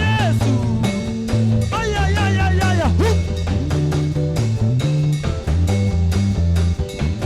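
Praise band playing an instrumental passage: a bass line moving between notes under a steady drum beat, with a lead instrument, likely guitar, playing sliding, bending notes above.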